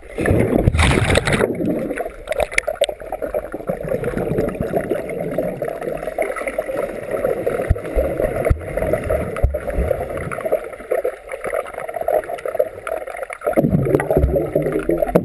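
Muffled churning and gurgling of pool water heard underwater through a GoPro's waterproof housing, as swimmers kick and stroke overhead. It starts with a loud splash as the camera goes under.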